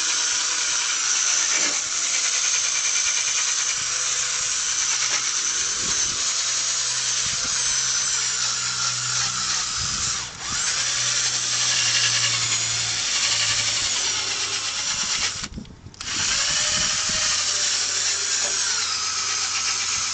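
Electric drill spinning a headlight-restoration abrasive pad against a plastic headlight lens, its whine wavering in pitch as the speed changes under light pressure. It stops briefly about fifteen seconds in and starts again.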